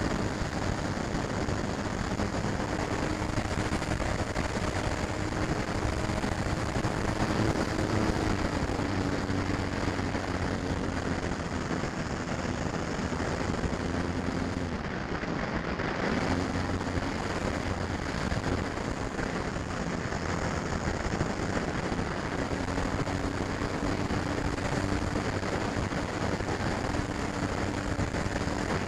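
Electric motor and propeller of a FlyZone Cessna 182 radio-controlled model plane in flight, heard from a camera on the plane with wind rushing over the microphone. The motor's pitch sags a little, then climbs again about sixteen seconds in as the throttle changes.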